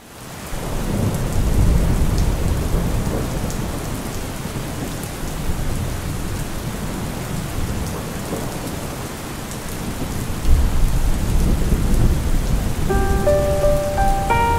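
Steady rain falling hard, with low rolling thunder that swells about ten seconds in. The sound fades in at the start, and a few soft musical notes come in near the end.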